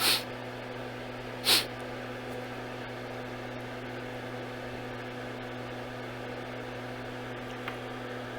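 Steady electrical hum on the repair bench, with two short hissing puffs: one right at the start and one about a second and a half in.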